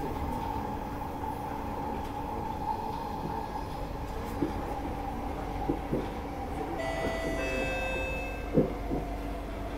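C151A electric metro train heard from inside the car, running with a steady rumble and a few clunks from the track. In the last few seconds a cluster of steady high-pitched whines comes in as it nears the station.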